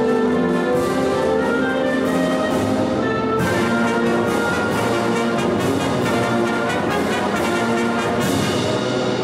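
Concert band of woodwinds and brass playing in full, with layered held notes over a steady beat of short accents; low notes are sustained near the end.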